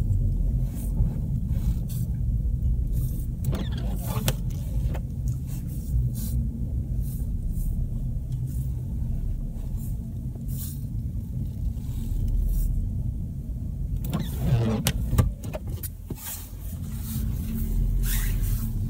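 SUV on Kumho WinterCraft SUV Ice WS31 studded winter tyres driving slowly over rutted snow, heard from inside the cabin: a steady low engine and tyre rumble with scattered clicks and knocks. The loudest knock comes about fifteen seconds in, with a brief squeak.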